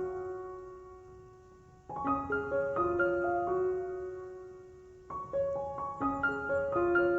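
Background piano music: gentle rising arpeggios, each phrase ringing out and fading before the next begins, about two and five seconds in.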